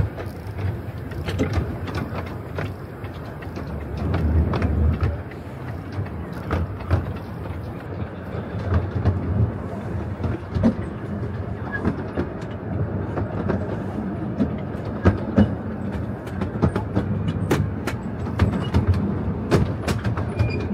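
Miniature steam railway carriage riding along the track: a steady rumble of the running gear with many irregular clicks and knocks of the wheels over rail joints, heard from aboard the train.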